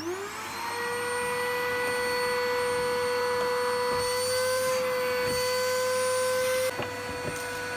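Small vacuum cleaner starting up, its motor whining up to speed and then running steadily with a high whine as the hose sucks inside a cavity. Near the end the sound suddenly drops in level and dips slightly in pitch, and the vacuum keeps running.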